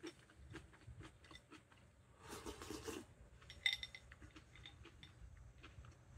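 Quiet eating sounds: chopsticks scraping and clicking against a glass bowl while cold ochazuke is shovelled in and chewed, with a short slurp a little over two seconds in and one sharp clink with a brief ring about three and a half seconds in.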